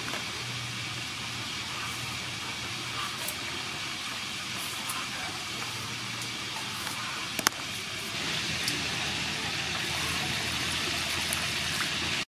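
Steady low hum and hiss with a single sharp click about seven and a half seconds in, then from about eight seconds a louder, even hiss of water running into a steel bowl of cucumbers and mint leaves.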